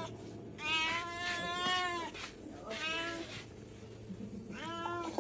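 A cat meowing: three drawn-out meows, the first and longest starting about a second in and lasting over a second, the others shorter.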